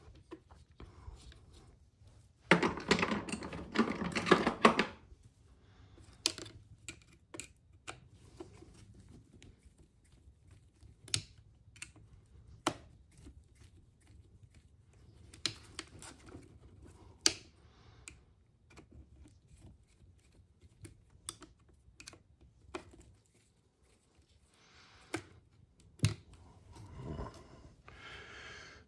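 Scattered light clicks and clatters of hand tools and small parts being handled while a Traxxas Slash 4x4 RC truck is taken apart. A louder noisy burst of about two seconds comes near the start.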